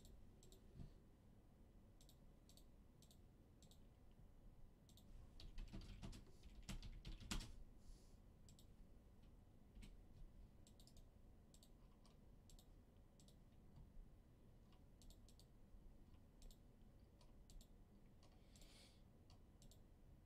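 Faint, scattered clicks of a computer mouse and keyboard, with a few soft knocks about six to seven seconds in.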